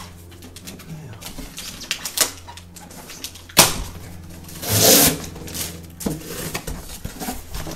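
A cardboard box being opened by hand: taps and scrapes of cardboard, a sharp knock about three and a half seconds in, and a loud rasp of cardboard and tape being pulled apart around five seconds in.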